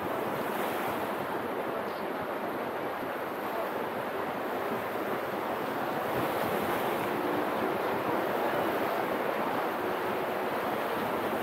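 Sea surf washing against a breakwater of concrete blocks: a steady rush of water that grows a little louder about halfway, with some wind on the microphone.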